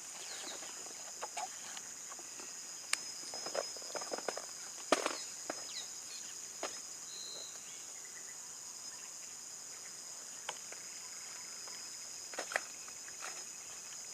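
A steady high-pitched insect drone in the forest, with scattered short clicks and knocks over it, the loudest about five seconds in.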